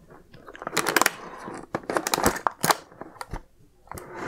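Clear plastic blister pack being pulled open off its cardboard backing: irregular crackles and sharp clicks of the thin plastic.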